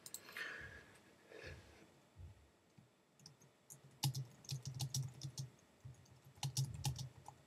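Typing on a computer keyboard: two quick runs of keystrokes, one about four seconds in and a shorter one near the end.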